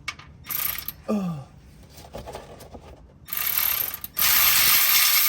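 Ratchet wrench clicking as the 13 mm oil drain plug is backed out. Then, about four seconds in, engine oil starts pouring in a steady stream from the 2017 Jeep Wrangler's oil pan into a drain pan, and this is the loudest sound.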